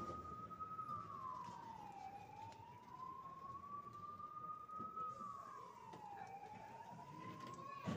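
A siren wailing, a single tone that climbs slowly and then drops quickly, cycling about every four seconds, fairly faint. A sharp knock comes right at the end.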